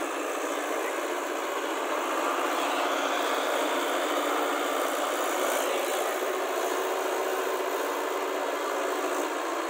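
Swaraj tractor's diesel engine running steadily as the tractor, on iron cage wheels, drags a puddler through wet paddy-field mud.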